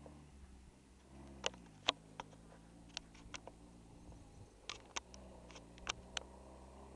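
Distant jeep engine running as it drives up the dirt track, its pitch dipping and rising twice as it changes speed. Sharp clicks sound close to the microphone throughout, louder than the engine.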